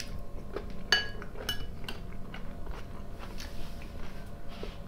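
A metal fork clinks a couple of times against a glass salad bowl with a short ring, then a man chews a mouthful of fresh tomato and cucumber salad.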